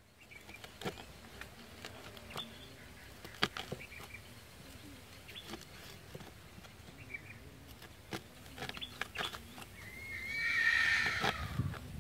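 Light knife taps and scrapes on a wooden cutting board as slits are cut into small bitter gourds, coming as scattered short ticks. About ten seconds in, a louder, wavering animal call lasts about a second.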